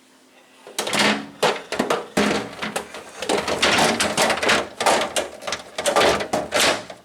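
Refrigerator shelving being handled, pulled out and fitted: dense, irregular plastic clattering, knocking and scraping that starts about a second in and keeps up.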